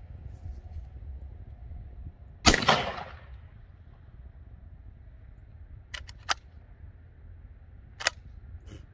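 A 12-gauge Panzer BP-12 bullpup shotgun fires one 00 buckshot round about two and a half seconds in, with a short echo. Several seconds later come sharp metallic clicks: two quick ones, then another near the end. These are the charging handle being worked by hand because the action is not cycling after the shot.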